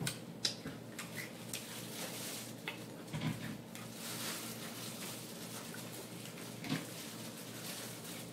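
Close-miked eating sounds: chewing and mouth smacks, with a few short sharp clicks and a paper napkin rustling against the mouth at the start.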